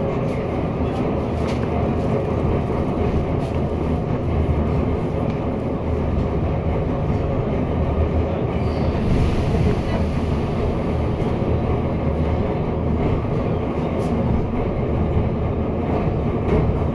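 Metro train running on the line, a steady rumble of wheels and running gear on the rails.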